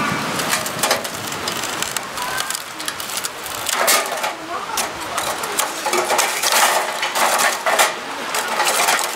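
Lumps of wood charcoal clinking and knocking against each other and the metal tongs as they are shifted around in a steel fire grill, a quick irregular run of sharp clicks. Steady rain hisses underneath.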